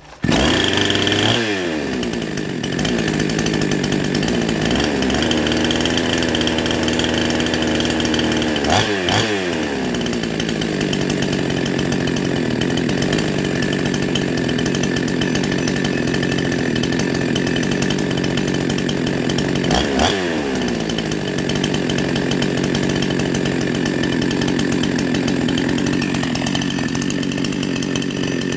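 Two-stroke 52cc Chinese chainsaw, rebuilt with a 62cc crank, running. It comes in at high revs and falls back to idle, then is revved and let fall again about nine seconds in and about twenty seconds in, running steadily in between.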